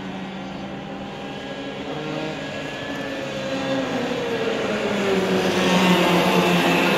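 A pack of racing kart two-stroke engines at full throttle, several running at once and getting louder over the last few seconds as the pack comes closer. One engine's pitch falls as it goes past.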